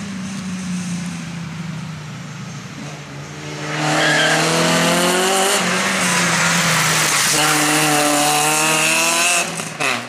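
Peugeot 106 rally car's engine at full throttle as the car comes past close, first a quieter steady drone, then a loud run rising in pitch, an upshift about halfway through and a second climb, cut off abruptly near the end.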